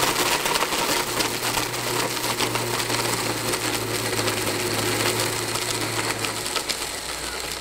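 Blendtec blender running steadily, grinding whole almonds into almond meal. Its low hum drops out and the noise eases near the end.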